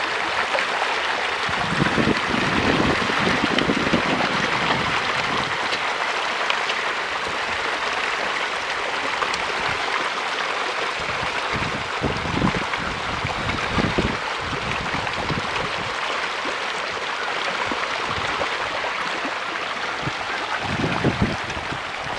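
Steady churning and splashing of water from a dense mass of catfish thrashing at the pond surface as they feed, with irregular low rumbles underneath.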